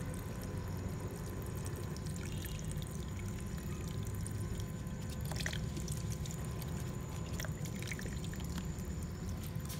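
Tap water running in a thin stream from a sink faucet and splashing onto plastic toys in the basin, with a few faint clicks.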